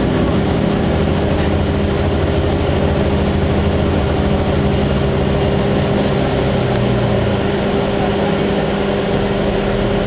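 Cummins ISC inline-six diesel and Allison B400R automatic transmission of a 2002 Blue Bird CS 40-ft transit bus driving along, heard from inside the passenger cabin as a steady engine drone. The engine note changes about seven seconds in.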